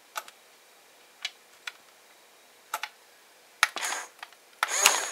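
A few light clicks, then the small electric motors of a 1/16-scale Double E RC excavator whirring in two short bursts near the end as the boom with its breaker attachment is lowered.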